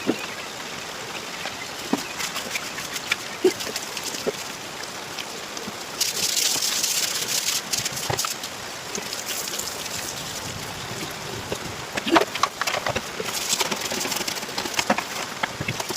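Water splashing and pouring with scattered knocks and clatters as a washing machine tub is rinsed out, with a louder rush of water for a couple of seconds near the middle.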